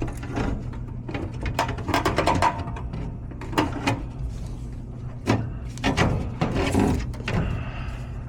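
Repeated metal clinks, taps and rattles as parts in a Goodman gas furnace's burner section are handled, over a steady low hum.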